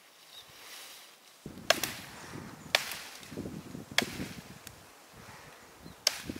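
Four sharp chopping strokes of a blade into wood, spaced one to two seconds apart.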